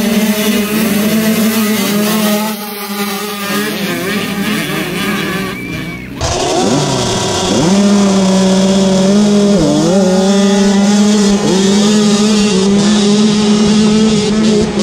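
Small youth dirt bikes' engines revving and accelerating off a race start, several rising and falling engine notes together. About six seconds in the sound changes to a single engine held at a steady high note, dipping briefly a few times.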